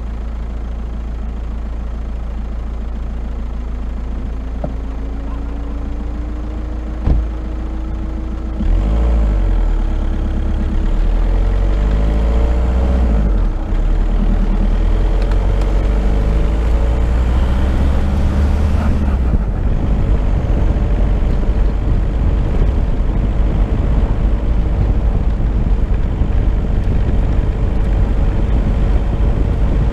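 Car driving on a gravel road at moderate speed: the engine runs steadily and rises in pitch as the car speeds up about five seconds in. There is a single knock a couple of seconds later, then a louder low rumble from the road and wind from about nine seconds on.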